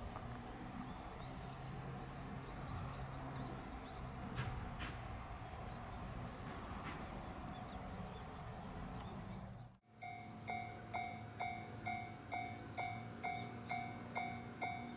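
Quiet outdoor background with a few faint chirps, then, after a sudden cut about ten seconds in, a Japanese level-crossing warning bell starts ringing steadily at about two strokes a second, the signal that a train is approaching.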